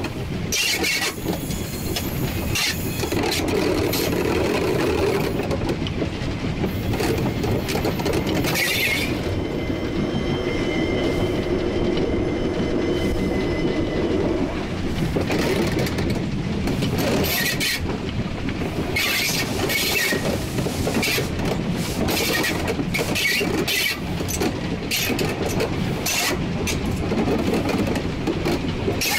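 1943 Davenport-built steam locomotive running along the track, heard from its cab as a continuous rumble of engine and wheels. A high, steady squeal sounds for several seconds about a third of the way in.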